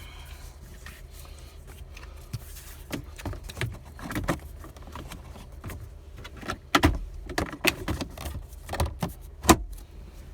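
Plastic dash trim on a 2018 Toyota Camry being handled and pressed into place: scattered sharp clicks and knocks as the pop clips seat, more of them and louder in the second half.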